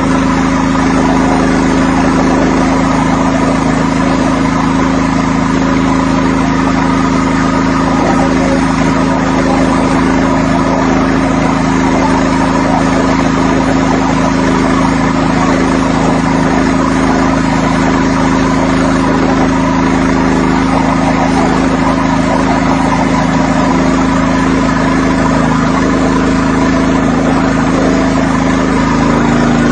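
Pressure washer running steadily at a constant pitch, with a hum and a hissing wash over it.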